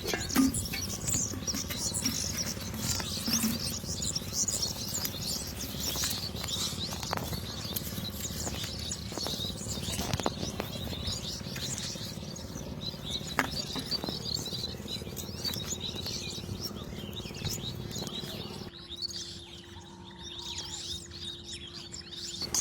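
Birds chirping over a low outdoor background noise, with a few sharp clicks. A steady low hum comes in about halfway through.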